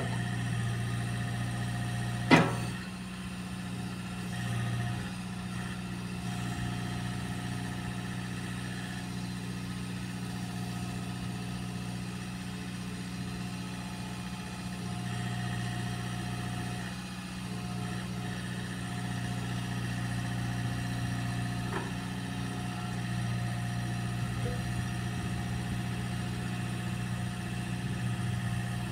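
Mecalac 8MCR midi excavator's diesel engine running steadily while its boom and arm move, the engine swelling slightly at times. A single loud sharp knock about two seconds in.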